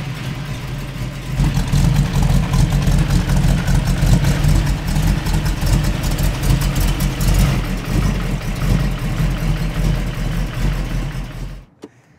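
Hot-rodded 1932 Ford roadster's V8 idling just after being started, running steadily, then cutting off suddenly near the end.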